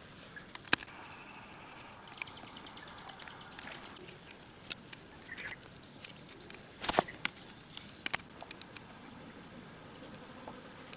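Scattered sharp clicks and knocks, the loudest a quick cluster about seven seconds in, with a few brief bird chirps over a faint steady outdoor background.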